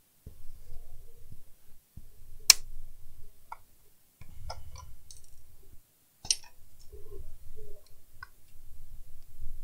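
Screwdriver working at the metal case of a PC power supply: scattered sharp clicks of metal on metal, the loudest about two and a half seconds in and another strong one near six seconds, over low handling rumble as the case is held and shifted on the bench.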